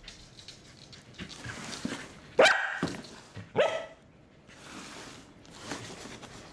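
Pembroke Welsh Corgi giving two sharp barks about a second apart, a little past the middle. These are wary barks at a cardboard box that frightens it.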